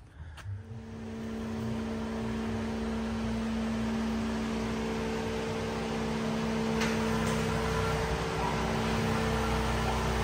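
A steady machine hum with an unchanging pitch over a constant hiss, starting about half a second in, with a couple of faint clicks about seven seconds in.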